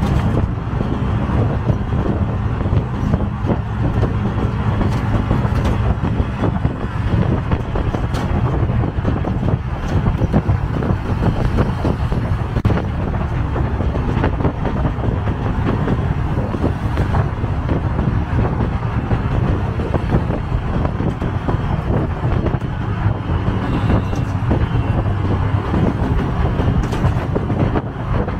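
Auto-rickshaw's engine running steadily as it drives along, with road and wind noise, heard from inside the open cab.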